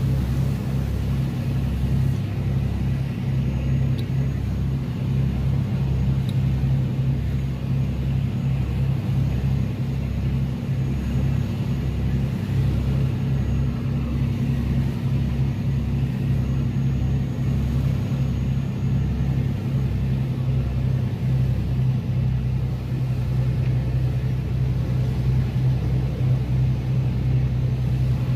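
A steady low mechanical rumble with a constant hum, and an uneven low flutter beneath it.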